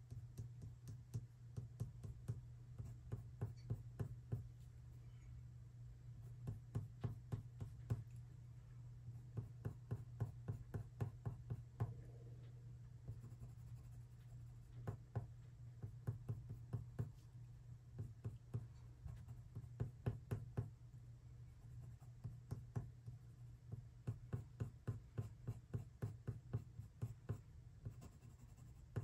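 Faber-Castell colored pencil tapping out quick short strokes on watercolor paper to lay in fur texture. The strokes come as runs of rapid clicks, several a second, with short pauses between runs, over a steady low hum.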